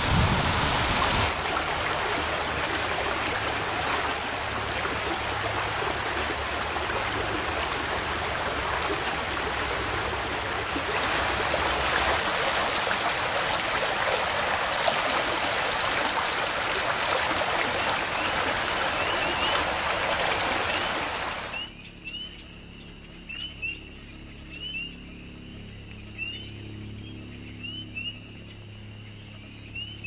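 A steady, loud rush of water noise that cuts off suddenly about two-thirds of the way in. What remains is a quieter outdoor ambience with short, high, rising animal chirps repeating about once a second.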